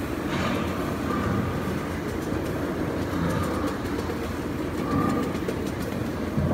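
Miniature ride-on railway train rolling along the track: a steady rumble of the wheels, with faint clicking in the middle stretch.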